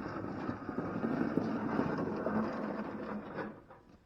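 Small snowblower engine running steadily, then dying away about three and a half seconds in.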